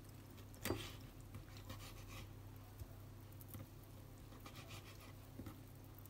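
Faint kitchen-knife cuts through roasted red pepper on a wooden cutting board: soft scattered taps and scrapes, with one sharper knock under a second in, over a steady low hum.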